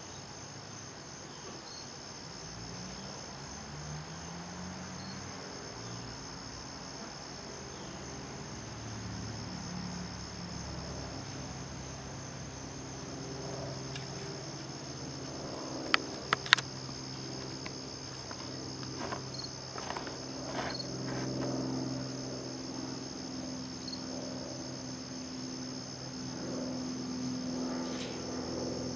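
Steady high-pitched chorus of crickets, with a low, wavering hum beneath it that grows louder in the second half. A few sharp clicks come just past the middle.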